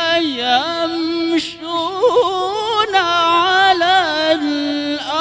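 A male Quran reciter chanting in melodic tilawah style, amplified through a microphone. He holds long sustained notes and ornaments them with wavering trills, with a quick fluttering run about two seconds in.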